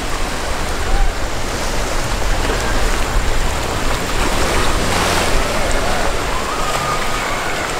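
Rough surf and churning seawater, a steady wash of noise, with wind buffeting the microphone.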